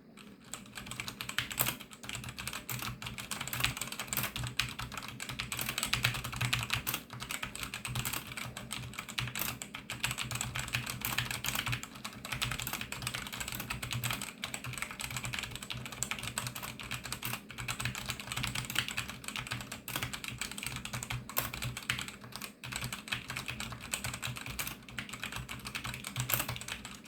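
Cougar Puri RGB mechanical keyboard being typed on continuously: a fast, unbroken stream of key clicks and clacks.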